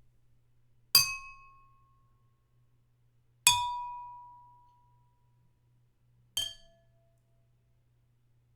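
A spoon tapping drinking glasses three times, a couple of seconds apart, each tap a bright clink that rings on. The ring of the third is lower, shorter and quieter than the first two.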